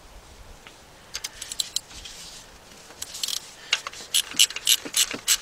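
Ratchet clicking on a spark plug socket and extension as a spark plug is loosened. It gives a few scattered clicks at first, then a quicker run of about four or five clicks a second from about two-thirds of the way in.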